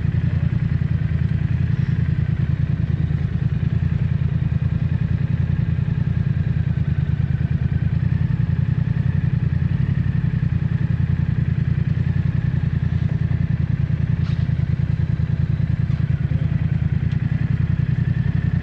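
Motorcycle engine running steadily while riding, a low, rapidly pulsing exhaust note with no change in speed.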